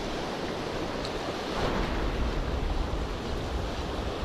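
Surf washing and breaking over breakwater rocks, with wind buffeting the microphone; the wash swells louder about one and a half seconds in.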